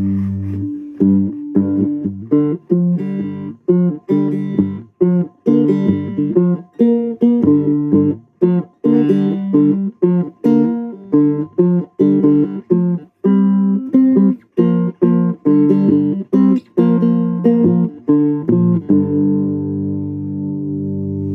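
Three-string resonator guitar, plugged in, played in a quick run of short picked notes and chords with brief stops between them, then a chord left to ring near the end.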